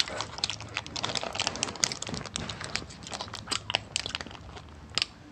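Shiny candy wrapper crinkling and crackling as it is peeled open by hand, in many quick, irregular crackles.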